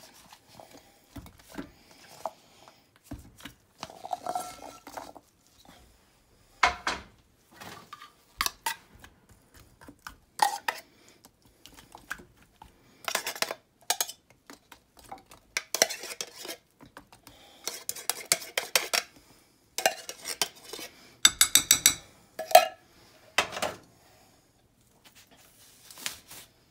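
Metal spoon clinking and scraping against a ceramic slow-cooker crock while vegetables and cream of chicken soup are spread around in it, with irregular knocks and a quick run of rapid taps about three-quarters of the way through.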